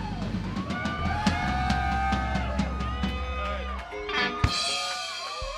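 Live rock band playing an instrumental passage: electric guitar notes that bend up and down over held bass notes, with drum and cymbal hits.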